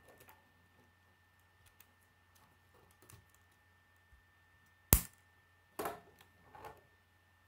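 Plastic K'nex pieces clicking and knocking as the racing-car model is pressed and handled on a wooden table: faint small clicks, then one sharp knock about five seconds in and two softer clattering knocks just after.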